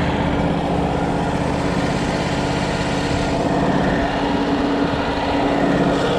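Wood-Mizer LT35 sawmill's engine running steadily at a constant speed.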